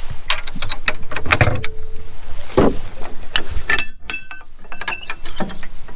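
A run of sharp metallic clanks and rattles, a few of them ringing briefly, like metal gear or fittings being handled.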